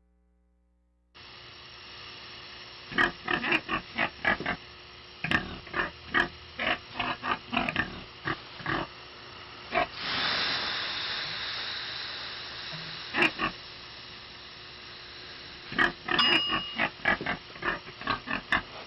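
A pig grunting and oinking in a rapid string of short grunts. About ten seconds in, water ladled onto hot sauna stones sets off a hiss of steam that fades over a few seconds, and near the end the pig starts grunting again.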